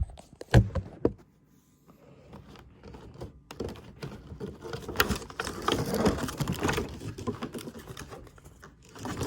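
Plastic toy packaging being handled and pried at, giving rapid clicking and rustling, with two sharp knocks about half a second and a second in.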